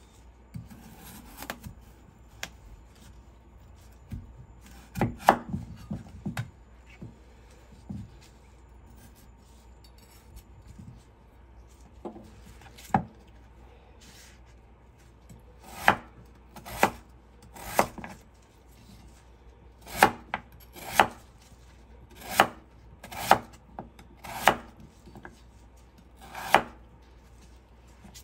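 Chef's knife slicing a peeled potato on a wooden cutting board, each cut ending in a sharp knock of the blade on the board. A few scattered cuts at first, then a steady run of about one cut a second in the second half.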